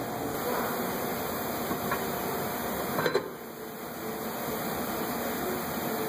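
Steady mechanical hum of shop background noise, with two brief knocks about two and three seconds in, the second louder.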